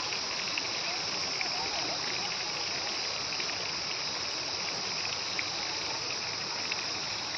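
Steady, high-pitched chirring of an insect chorus that does not let up.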